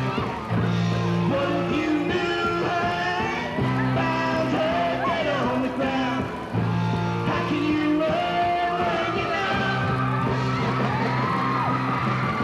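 Amateur rock band playing live: electric guitar and drums under a lead vocal that is sung and partly yelled, over low notes that shift every couple of seconds.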